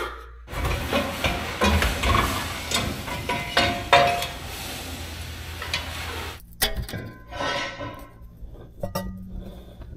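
Background music over metal clanking and clattering of old exhaust pipe sections being handled, then a cut to a tool scraping old gasket material off an exhaust flange.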